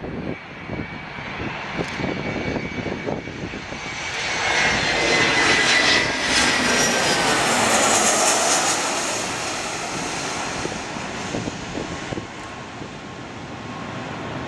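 Boeing 737 jet on landing approach passing low overhead. Its turbofan roar and whine swell to a peak about halfway through and then fade as it moves away, with the whine dropping in pitch as it passes.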